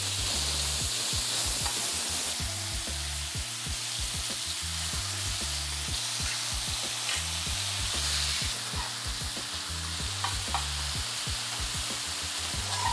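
Marinated mutton chops sizzling steadily in hot oil and butter on a tawa, with a spatula stirring and scraping the pieces across the pan.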